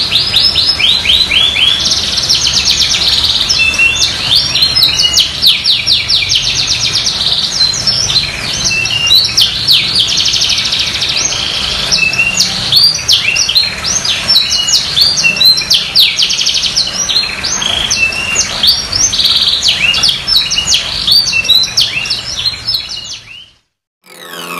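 Domestic canary singing in full voice, a continuous run of rapid trills and rolling phrases, high-pitched. The song stops abruptly near the end.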